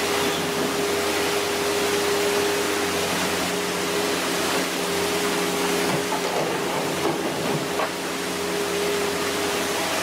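Heavy excavator's diesel engine running with a steady drone and an even hum. A few faint pitch-shifting sounds come in between about six and eight seconds in.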